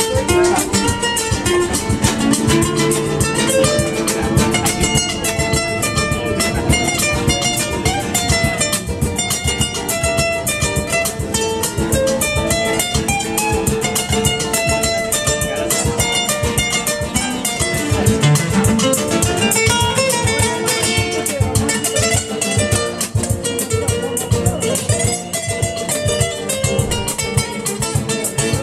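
Acoustic guitars strummed and picked together in a steady, driving rhythm.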